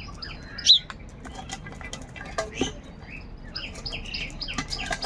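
Birds calling: rapid high chirps with a few harsher, lower calls mixed in, and scattered sharp clicks and taps; the loudest call is about a second in.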